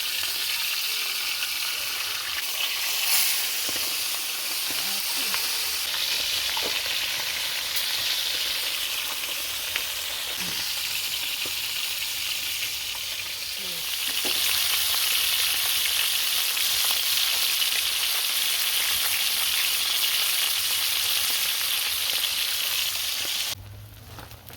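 Seasoned river fish frying in a frying pan, a steady sizzle. It gets louder a little over halfway through and cuts off suddenly near the end.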